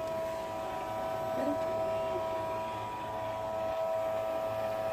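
Automatic electric bilge pump running with a steady whine as it pumps water out of the boat's hull.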